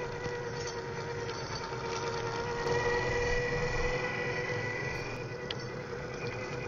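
Electric motor of a Tamiya radio-controlled monster buggy whining at a steady pitch as it drives on gravel, a little louder about three seconds in.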